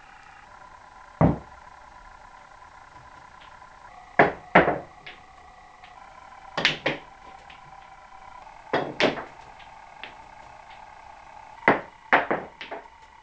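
Cue tip striking the cue ball and snooker balls clacking together and knocking against cushions and pockets on a small table, in about five short groups of sharp clicks and knocks a few seconds apart. A faint steady hum runs underneath.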